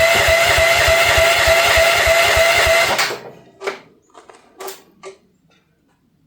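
Future FT15 mini excavator's gasoline engine being cranked by its starter in cold weather with the choke on, at about five or six even compression beats a second under a steady starter whine. It does not catch, and the cranking cuts off abruptly about three seconds in. A few clicks and knocks follow.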